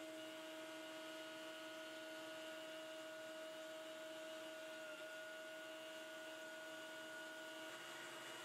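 CNC router spindle running steadily while it takes a light pass, a little over 1/32 inch deep, along a dado in the case side. It is faint: an even tonal whine over a soft hiss, which shifts slightly in pitch near the end.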